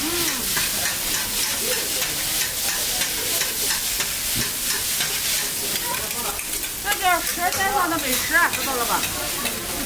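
Food frying in a hot pan, a steady sizzle with repeated sharp clacks of utensils. Faint voices join near the end.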